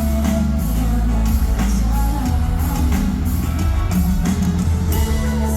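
Live pop-rock band playing loudly, with electric guitar, bass and drums under singing.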